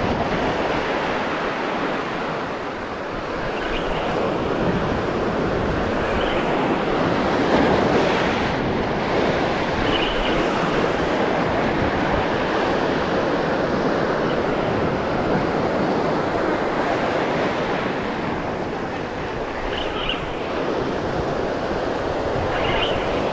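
Sea surf breaking and washing over rocks, with several faint short high-pitched chirps over it.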